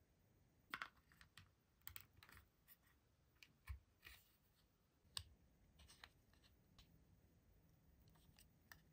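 Faint, irregular clicks and taps of hard plastic toy parts being handled and snapped together: a Sonic buildable action figure pressed onto its plastic base plate and a small ring piece fitted on.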